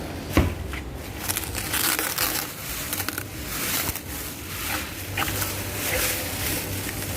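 Speaker packaging being handled and opened: irregular rustling and crinkling, with a sharp knock about half a second in.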